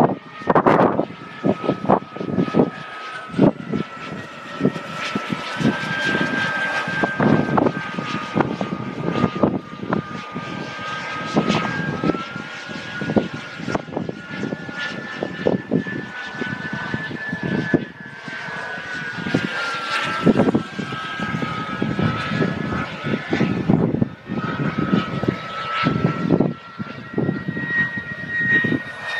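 Two radio-controlled model J-10 jets flying overhead, their engines two steady high whines that drift up and down in pitch independently of each other. Irregular gusts of wind thump on the microphone throughout.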